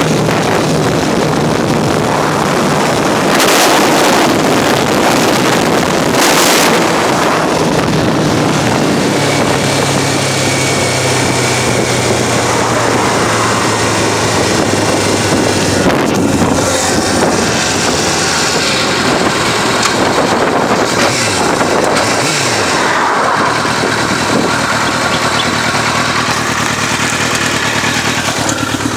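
Suzuki GSX-R600 K5's inline-four engine running while the motorcycle is ridden, under heavy wind rush on the microphone. The engine note drops and rises several times in the second half.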